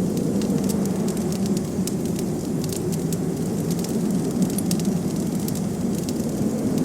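Wood fire crackling, with many short sharp pops at irregular intervals, over a steady low rush of blizzard wind.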